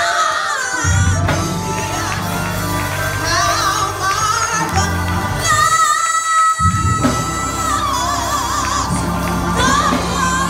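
A woman singing a slow gospel solo with strong vibrato over sustained keyboard chords. About halfway through she holds one long note while the accompaniment briefly drops out.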